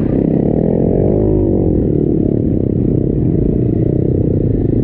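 KTM 350 dirt bike's four-stroke single-cylinder engine running under load through mud, its pitch rising and falling once about a second in. The sound is muffled by rain covering the microphone.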